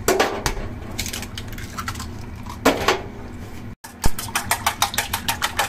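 An egg is cracked and dropped into a stainless steel mixing bowl, then a wire whisk beats the eggs in the bowl, clicking against the metal about five or six times a second.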